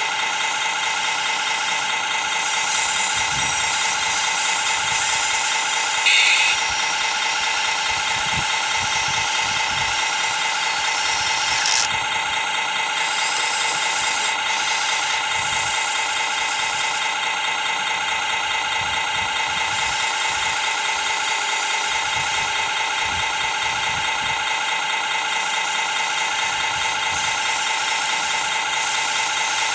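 Radio-controlled model excavator working, its drive running with a steady mechanical whine, with rattling and scraping as it digs and swings. Two brief knocks, about six and twelve seconds in.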